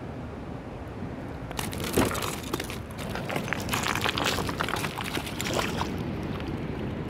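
Crunching and clicking of loose stones and gravel, starting about a second and a half in with a sharp knock just after, as a common carp is handled and picked up off a stony bank; the clatter dies down about six seconds in.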